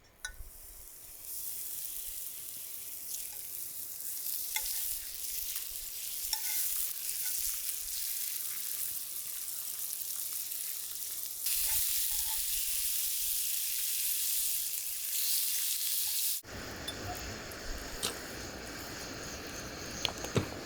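Food frying in a hot pan, a steady sizzle with a few small clicks. It grows louder about two-thirds of the way through, then cuts off abruptly.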